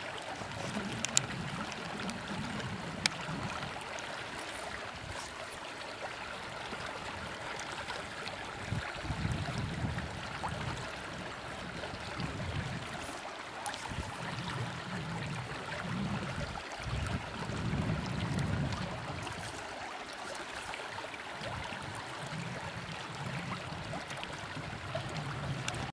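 Steady rush of river current flowing past rocks, with a low rumble that swells and fades several times and two sharp clicks in the first few seconds.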